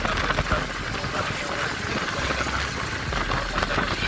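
Steady rush of wind and road noise on a moving motorcycle, its engine running underneath.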